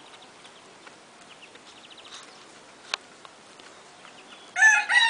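A rooster starts crowing loudly about half a second before the end, its call stepping in pitch. Before that, only faint bird chirps and a single sharp click near the middle.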